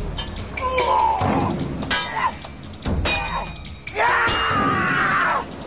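Heavy thuds of blows struck down onto rock, with wordless shouted cries between them, over background music. The loudest cry is drawn out, its pitch sliding, about four seconds in.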